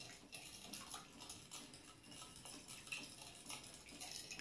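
Fork whisking a runny egg, oil and water mixture in a glass bowl: a quick, even run of faint clicks as the tines strike the glass.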